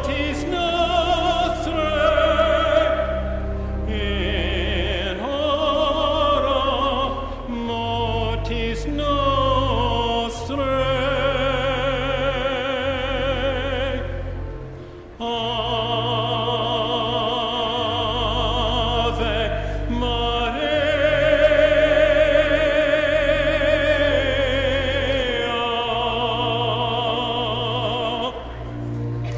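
Classical sacred music: a singer's voice with strong vibrato over long held low notes, breaking off briefly about fifteen seconds in before going on.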